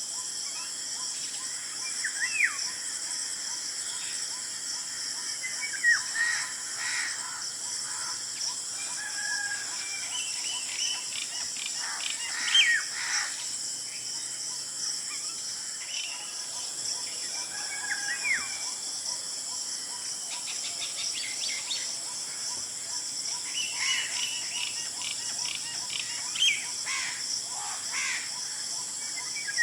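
Golden orioles calling: scattered short, curved whistles and chirps, with a quick run of ticking notes about two-thirds of the way through. A steady high-pitched hiss sits underneath.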